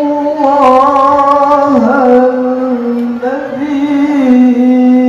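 A male Qur'an reciter's voice in melodic tilawah, holding a long drawn-out vowel that steps down, rises and falls again in slow ornamented turns of pitch.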